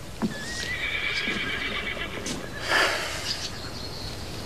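A horse whinnying: one long high call starting about half a second in and lasting over a second, followed by a short breathy blow just before the three-second mark.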